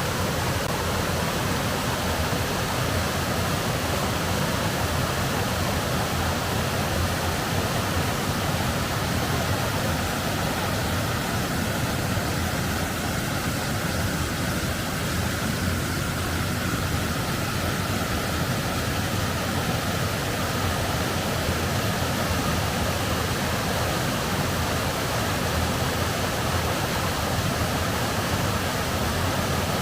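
Waterfall on a mountain creek: a steady, unbroken rush of falling water.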